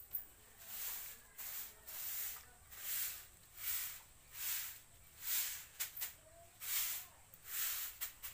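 Short hand broom sweeping a floor in steady strokes, a dry swish about every three quarters of a second.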